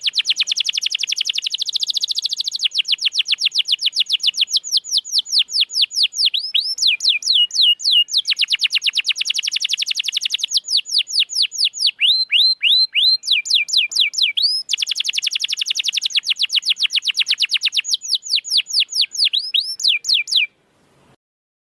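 Domestic canary singing a long, loud song of rapid trills, each a fast run of the same high note, switching to a new trill every few seconds. Slower runs of down-slurred whistles come in between, and the song stops abruptly near the end.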